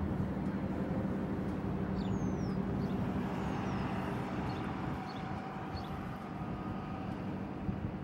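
Diesel locomotives of an approaching loaded coal train running, a steady engine drone with a low hum. A few faint bird chirps come through a couple of seconds in and again around five to six seconds in.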